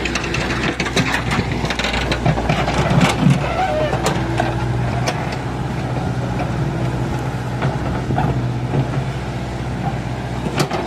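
Diesel engine of a mechanical digger running steadily, with scattered knocks and clatter.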